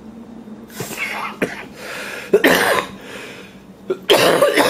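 Short raspy, cough-like bursts from a person: one about a second in, another a little past two seconds, and the loudest just after four seconds.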